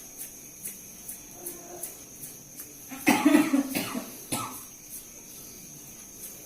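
A person coughing: a loud, rough cough about three seconds in, then a second, shorter cough about a second later.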